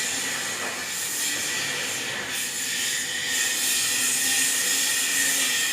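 Steady, even hiss with a thin, high, steady whine underneath, holding at one level throughout.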